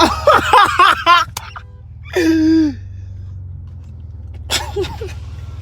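Steady low drone of a car's engine and road noise heard inside the moving car's cabin, with loud wordless men's exclamations over it for the first second or so and again briefly after about two seconds.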